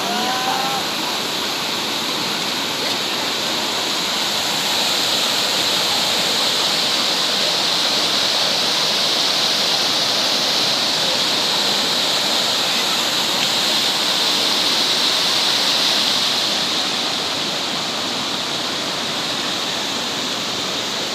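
Steady rushing of flowing river water, an even hiss that swells a little in the middle.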